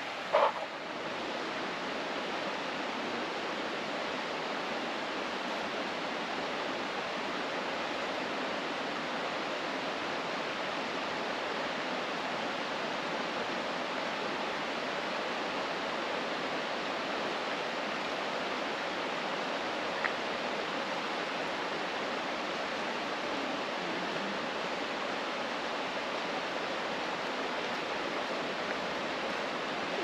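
Steady rush of flowing river water over rocks, one even sound throughout. A brief sharp sound breaks in just after the start.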